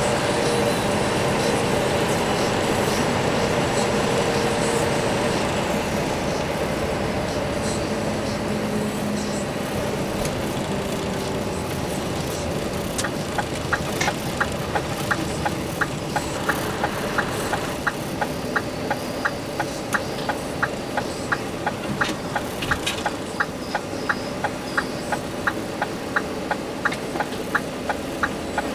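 Cab noise of a Scania R500 semi truck on the move, its V8 engine running under a steady road rumble that eases off gradually. About halfway through, a regular ticking sets in at about three ticks a second, the turn-signal indicator as the truck nears a junction.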